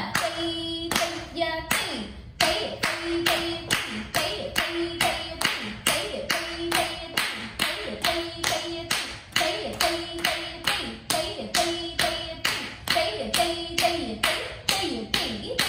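Bare feet stamping the Bharatanatyam thattadavu on a hard floor, an even beat of about three sharp strikes a second, with a voice chanting the rhythm syllables in time.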